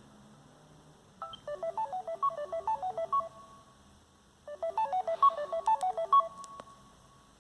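Samsung Galaxy Y phone ringtone: a short, fast melody of quick notes, played twice with a gap of about a second between, each phrase ending on a held note.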